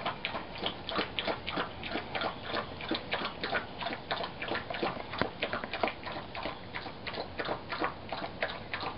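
A dog eating rehydrated dog food (dried food mixed with warm water) from a bowl: a fast, irregular run of short wet clicks from lapping and chewing, several a second.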